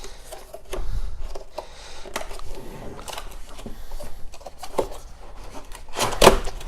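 Cardboard product box being opened and handled by hand: scattered rubs, scrapes and light clicks of the packaging, with a couple of louder knocks about six seconds in.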